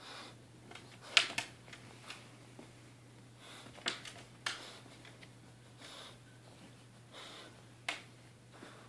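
French Bulldog's snorting breaths, short puffs every second or two, with a few sharp clicks (the loudest about a second in) and a low steady hum underneath.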